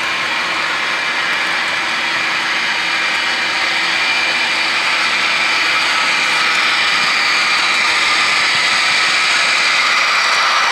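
Onboard sound decoders of HO scale ES44AC and SD60I model diesel locomotives play diesel engine running sound through their small speakers, mixed with the models' motor and wheel noise on the track. The sound grows slowly louder as the locomotives approach.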